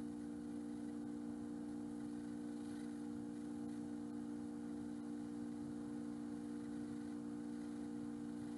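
Steady low hum made of a few fixed pitches: background room tone with no distinct events.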